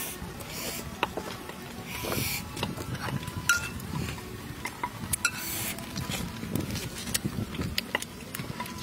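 Close eating sounds: cooked snake torn apart by hand, dipped in sauce and chewed, with wet smacks, a few short slurps and many small sharp clicks.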